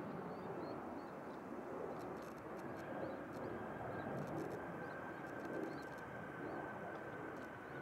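Small birds chirping over a steady outdoor background hiss, with a few short runs of faint rapid clicking and a thin, steady high tone coming in about three seconds in.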